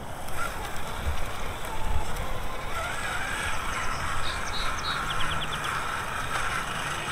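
Redcat Gen9 1/10-scale RC trail truck crawling through dry reed grass: its electric motor and gearbox give a wavering whine that rises and falls with the throttle.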